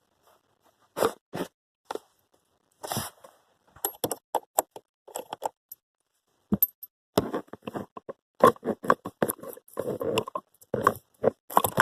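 Irregular scrapes, clicks and knocks of hands and tools working at the blower motor and plastic dash trim under a car's dashboard. They are sparse at first, then thicken into a quick run of clatter in the second half.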